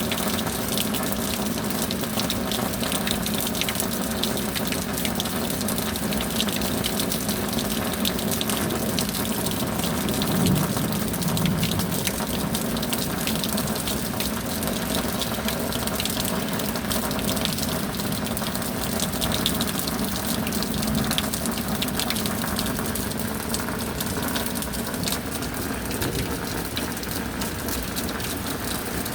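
Heavy rain falling steadily, a constant rush of water with a fine, dense patter throughout.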